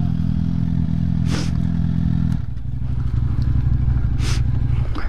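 Suzuki GSX-R sportbike's inline-four engine idling. A little over two seconds in, the note drops lower, and the engine stops just before the end. Two short hisses are heard, one after about a second and a half and one near the end.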